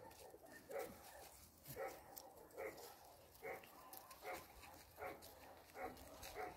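Cane Corso puppy barking faintly in short, repeated yaps, about one a second.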